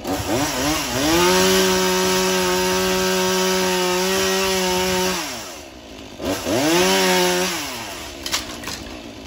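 Chainsaw cutting tree limbs: it revs up, runs at steady full speed for about four seconds, drops off, then is revved again for about a second. A few sharp clicks follow near the end.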